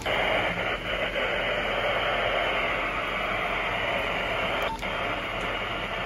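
Static hiss from a Motorola two-way radio's speaker as its channels are stepped through with no signal. A short key beep and a brief break in the hiss come near the end.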